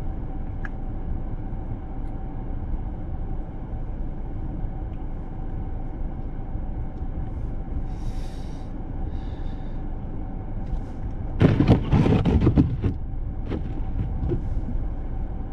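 Inside a car stopped at a traffic light with the engine idling: a steady low rumble with a faint steady whine. About eleven and a half seconds in, a louder rattling noise lasts for roughly a second and a half.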